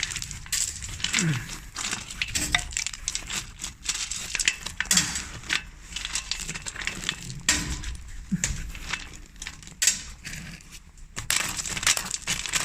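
Irregular crunching, clicking and clinking of broken concrete rubble being shifted and scraped by hand.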